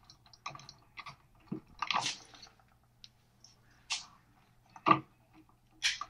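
Self-adjusting wire stripper clicking and crunching as it grips electrical wire and pulls the insulation off. There are a few separate snaps with quiet between them, the sharpest about two seconds in and just before five seconds.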